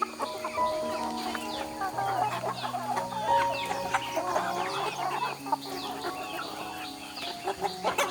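Flock of chickens clucking, with many short, high calls overlapping.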